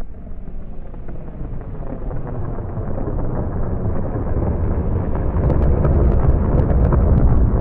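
Deep rumbling from Popocatépetl's explosive ash eruption, building steadily louder, with sharp crackles and pops from about five and a half seconds in.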